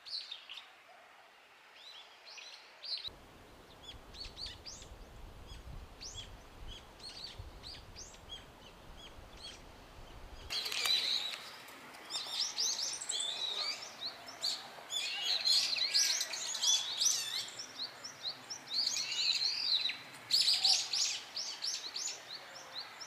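Brown-eared bulbuls calling loudly, quick runs of short, shrill, sliding notes. The calls are sparse at first and become louder and more frequent about ten seconds in.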